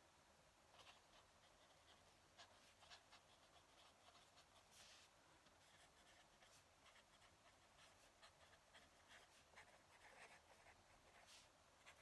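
Fountain pen nib scratching faintly across paper in short, irregular strokes as words are handwritten.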